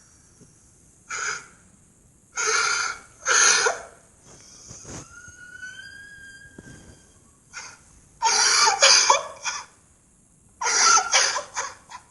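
A cartoon character's crying: a run of loud, breathy, gasping sobs in separate bursts, with a thin high whimper rising slightly in pitch during a quieter stretch in the middle.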